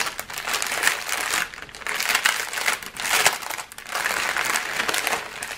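Clear plastic bags of diamond-painting drills crinkling as they are handled, in irregular bursts.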